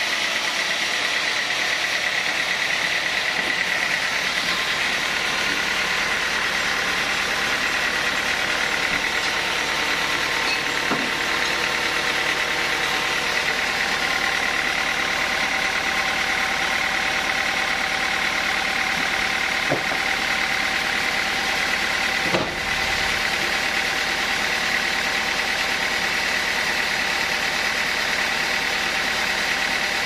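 Band sawmill running steadily without cutting: the drive and spinning blade keep up an even mechanical drone with a high whine. A sharp knock about three-quarters of the way through.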